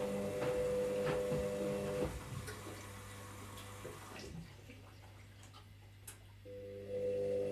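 Washing machine running: a steady motor hum with a tick about once a second. About two seconds in the motor stops and only a low hum remains, then the motor starts again near the end, a pause between turns of the drum.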